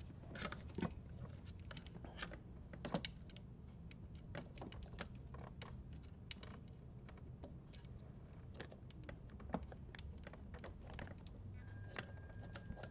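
Faint, irregular small clicks and taps of fingers and plastic as a wire is worked into a screw terminal on a plastic fuse block, over a low steady hum. A faint steady tone comes in near the end.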